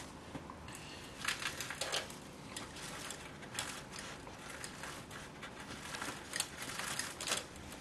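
Soft, irregular gritty crunching and rustling of loose potting substrate as fingers gather the last of it and press it down around a willow cutting in a plastic seedling tray cell.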